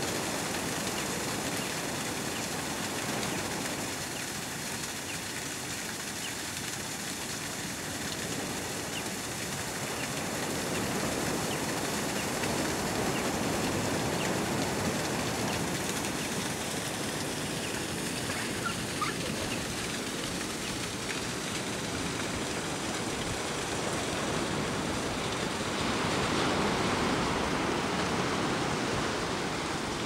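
Steady rushing of water: first a small waterfall spilling between boulders, later waves washing onto a sandy beach, louder for a couple of seconds near the end.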